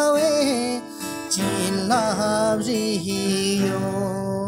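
Acoustic guitar accompanying a male singer in a Ladakhi folk song (jungluu). A held, wavering sung note trails off about a second in, a short sung phrase comes near the middle, and the guitar chords ring on to the end.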